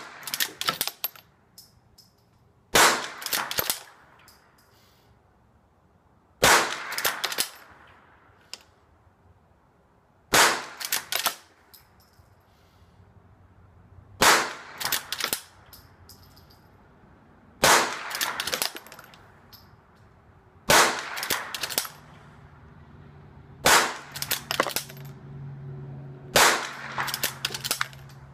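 Henry Classic lever-action .22 rifle firing .22 Long Rifle rounds: eight single shots spaced about three to four seconds apart, each followed by quick metallic clacks as the lever is worked to chamber the next round.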